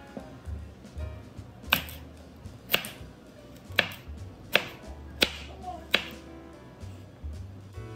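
Chef's knife slicing a raw carrot into rounds on a bamboo cutting board: about six sharp taps of the blade going through and hitting the board, roughly one every three-quarters of a second.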